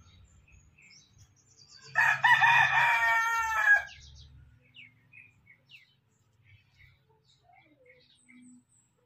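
A rooster crows once, about two seconds in, lasting nearly two seconds. Faint short bird chirps follow.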